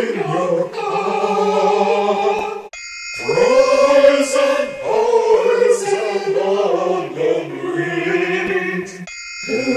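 A choir of voices singing a slow song in harmony with long held notes, the words 'bringing food to you in your car' and then 'fries and pies and onion rings'. The singing breaks off briefly about three seconds in and again near the end.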